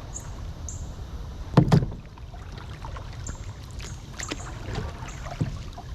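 Kayak paddling: paddle strokes splashing and dripping in the water over a steady low rumble, with one loud knock about a second and a half in.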